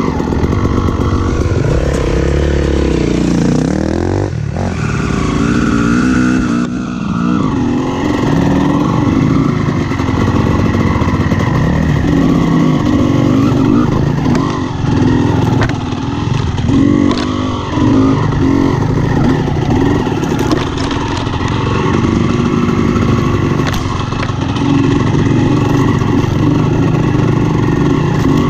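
Honda CR250R two-stroke single-cylinder dirt bike engine being ridden hard, its pitch rising and falling constantly with throttle and gear changes, and a few short knocks from the bike over rough ground.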